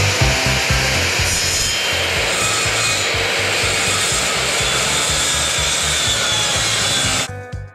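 A power tool cutting metal, a steady noisy hiss that stops abruptly near the end, over background music with a steady beat.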